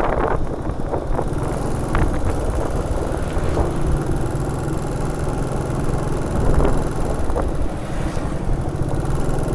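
A motor vehicle running along a road: a steady low engine drone with road noise.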